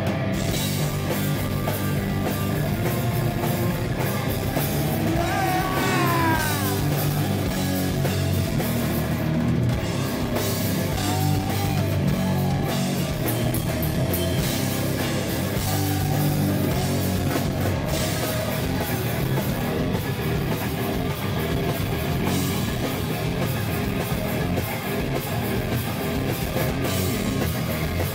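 Live heavy rock band playing loudly: distorted electric guitar over bass and a full drum kit, without a break.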